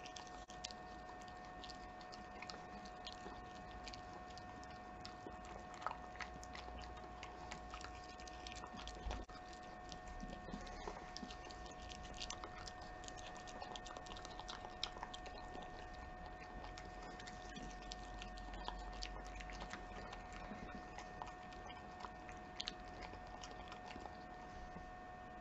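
A Keeshond dog chewing and licking food, a run of small irregular wet clicks and smacks with a few louder ones, over a steady faint electrical whine.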